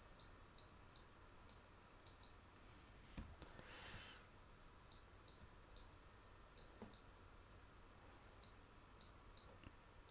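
Faint computer mouse button clicks at irregular intervals of about half a second to a second, with a brief soft rush of noise about four seconds in.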